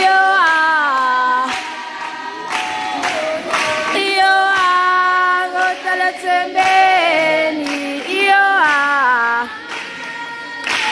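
A group of young women singing a traditional song a cappella, in held phrases that slide down in pitch at their ends, with a few sharp percussive hits scattered through.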